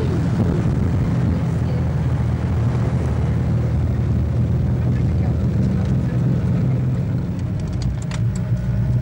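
Off-road 4x4's engine running under way on a rough dirt track, a steady low drone heard from inside the cab. A few sharp knocks or rattles come near the end.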